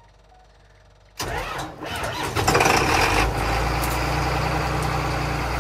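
John Deere 9610 Maximizer combine's 8.1-litre PowerTech six-cylinder diesel starting: it cranks and catches about a second in, runs up loud for a couple of seconds, then settles into steady idling.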